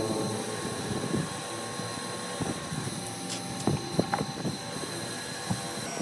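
Electric motor spinning a wire brush wheel while a rusty metal pump part is held against it to scour it clean: a steady motor hum with a scratchy hiss and scattered sharp ticks.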